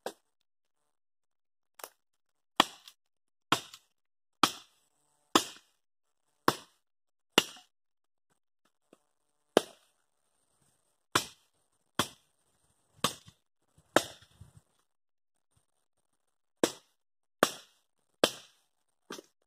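Dry branches being chopped for firewood: sharp, separate blows, about one a second, some seventeen in all, with two short pauses.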